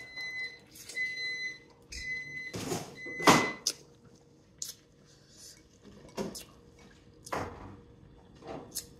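An electronic appliance beeps four times, about once a second, at one steady pitch. Over and after it come close-up wet sucking and slurping sounds of crab meat being eaten from the shell and off the fingers, the loudest about three seconds in.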